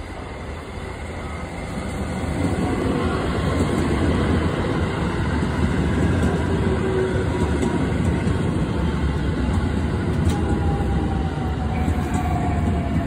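Electric commuter train running into the station close by on snow-covered track, a steady rumble of wheels on rail that grows louder about two seconds in as the cars come alongside. A faint whine slowly falls in pitch as the train slows, and there are a few light clicks.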